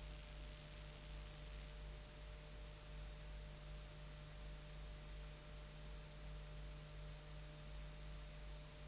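Faint steady electrical hum with a few thin steady tones over an even hiss; no programme sound.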